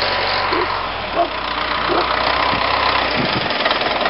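Wheel loader's engine running steadily at a low, even speed.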